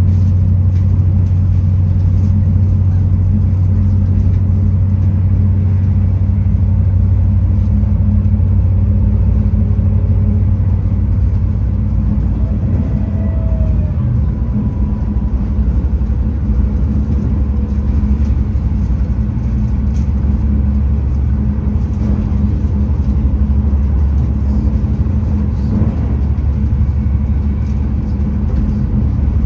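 V/Line VLocity diesel railcar heard from inside the carriage while running: a steady low diesel engine drone over wheel-on-rail rumble, the engine note changing about six seconds in.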